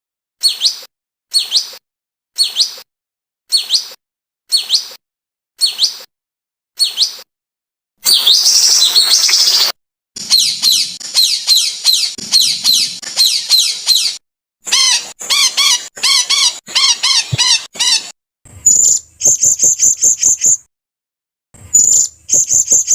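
Recorded songbird calls spliced together as a masteran training track: a short call repeated about once a second, then a burst of chattering and a run of fast repeated song notes, then high trills. The clips are separated by abrupt, dead-silent gaps.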